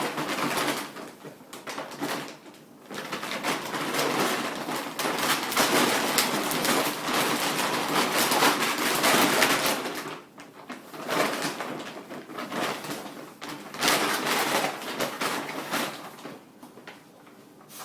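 Crinkling and rustling of a dog food bag as a dog plays with it, in long stretches of continuous crackling broken by short pauses.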